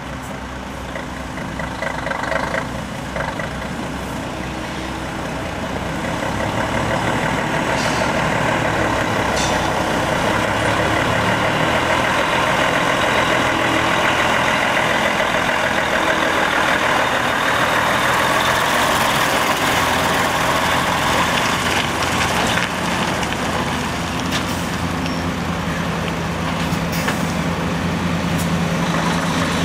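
Mercedes-Benz Actros 4146 dump truck's diesel engine running as the loaded truck pulls away and drives past. It grows louder about six seconds in and then holds steady, with a few short knocks along the way.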